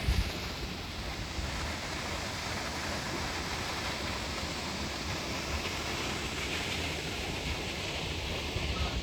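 Steady, even rush of a large waterfall: continuous falling water with no breaks.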